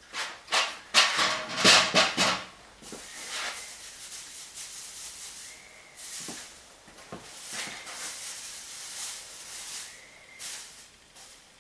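Plastic sheeting crinkling loudly as it is pulled back from the shelving, then a hand-held spray hissing in several uneven bursts into the archive boxes.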